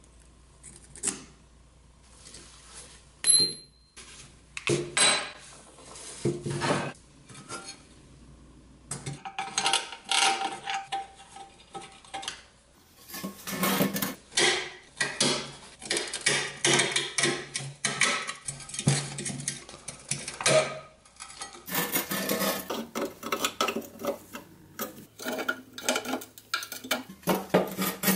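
Hand tools and the rusty pressed-steel parts of an old toy loader clicking, clinking and scraping against each other as it is taken apart. A few separate clicks come first, then a busier run of metal rattling and scraping through the second half.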